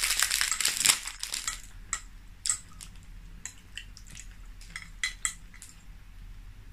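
A fork clicking and scraping in a bowl of noodles, as scattered light clicks. A plastic wrapper crinkles through the first second as it is peeled back from a piece of pineapple.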